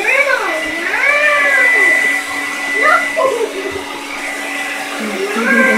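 Hand-held hair dryer blowing steadily, with a small dog whining four times over it in rising-and-falling calls.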